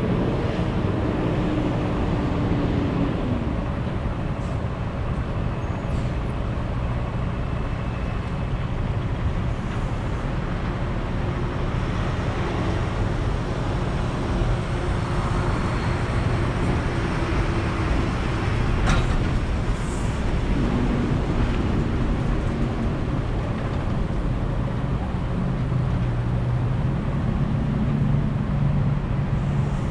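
Steady car noise: an engine running under a low rumble, with one sharp click about 19 seconds in.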